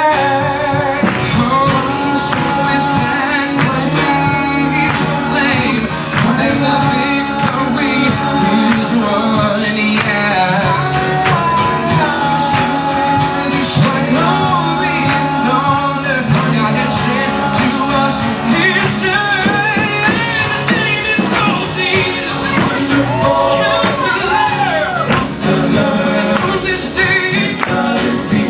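Live gospel song: singers over a full band with a steady beat of drums.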